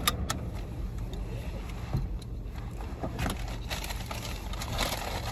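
A few scattered clicks and light rustles of small items being handled, over a steady low hum inside a parked car's cabin.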